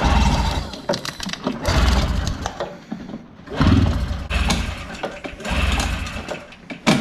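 Recoil starter of a 1983 Yamaha snowmobile's oil-injected two-stroke engine pulled four times, about two seconds apart, each pull spinning the engine over with a brief low rumble. It does not fire, because the kill switch is left in the off position.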